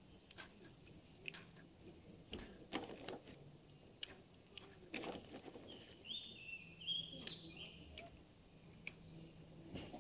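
Faint clicks and rustling of paintball gear being handled between strings of shots. A bird sings a short run of chirps about six seconds in.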